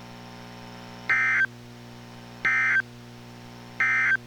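NOAA Weather Radio SAME end-of-message data tones concluding the test: three short, identical buzzy digital bursts about a second and a half apart, over a steady low hum.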